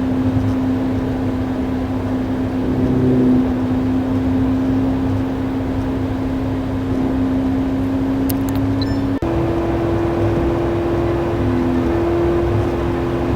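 Ford Mustang's engine running steadily under road and tyre noise while driving. About nine seconds in the engine note cuts briefly and then holds at a higher pitch.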